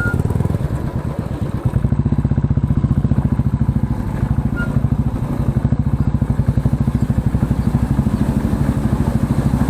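Motorcycle engine and exhaust running under way, with a fast, even pulsing beat.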